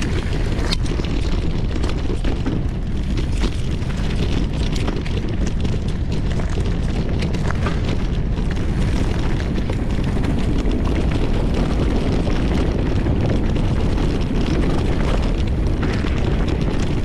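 Mountain bike riding down a rough dirt trail, heard from a camera on the bike: a steady low rumble of wind buffeting the microphone and tyres running over dirt and stones, with scattered clacks and rattles as the bike jolts over bumps.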